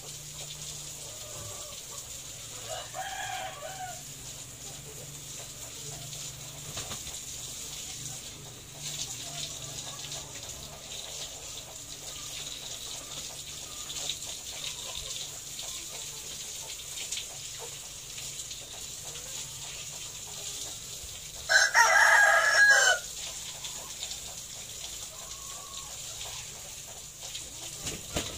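A rooster crows once, loudly, for about a second and a half, about three-quarters of the way through. A fainter chicken call comes about three seconds in.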